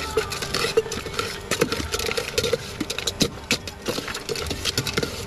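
Metal spoon stirring and knocking inside a steel container, giving quick irregular clinks with short metallic rings.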